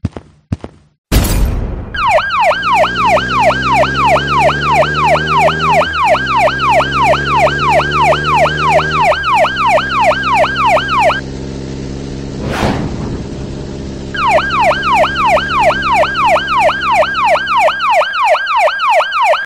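Police siren sound effect, a fast up-and-down wail of about two to three sweeps a second, over a low vehicle engine note that climbs and drops back twice. It starts after a loud crash about a second in, breaks off for about three seconds midway with a sharp bang, then resumes.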